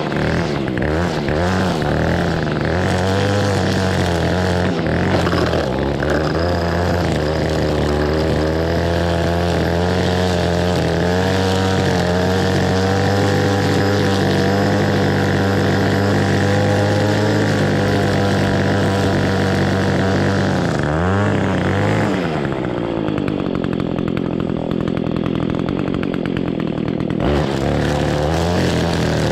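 Echo SRM-225 string trimmer's two-stroke engine running at full throttle while trimming grass. About two-thirds of the way in the throttle is let off and the pitch falls to idle for about five seconds, then it revs back up a couple of seconds before the end.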